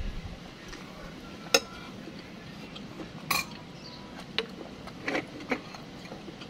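Metal spoons clinking against bowls while eating meatball soup. About five separate clinks, the sharpest about a second and a half in.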